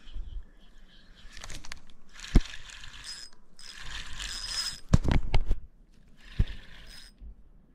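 Fishing reel being cranked in spells of about a second, its gears whirring, with a few sharp knocks in between.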